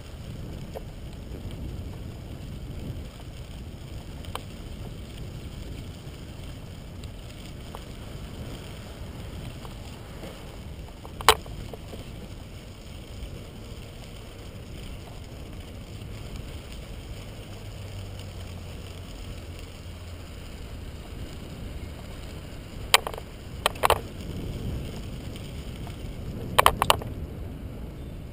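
Bicycle tyres rolling on a crushed-stone trail, a steady low rumble, with a few sharp knocks from the bike jolting over bumps: one about 11 seconds in, two close together around 23 seconds, and a pair near the end.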